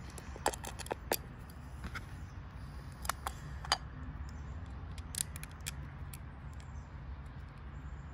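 Scattered small clicks and taps of metal parts on an FCR carburetor being handled and fitted by hand, over a steady low background rumble.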